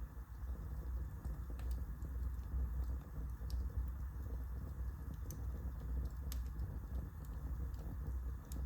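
Wood fire burning in a fireplace: a steady low roar of flames with a handful of sharp, separate crackles from the burning wood, one every second or two.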